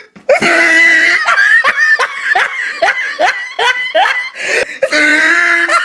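Loud human laughter: a held note, then a run of short ha-ha bursts at about two to three a second, and another held note near the end.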